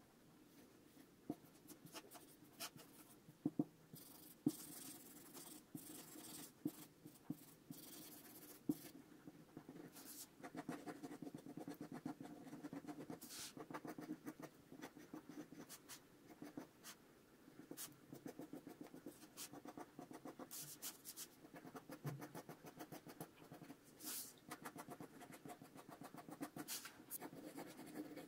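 Pencil scratching faintly on drawing paper in short, quick sketching strokes, with a few sharp ticks in the first nine seconds or so.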